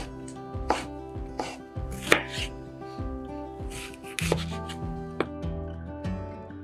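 Kitchen knife cutting kumquats on a cutting board: separate sharp taps of the blade meeting the board, at an uneven pace of roughly one a second.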